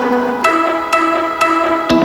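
Background music: a bright instrumental tune of held notes changing about twice a second over an even, plucked beat.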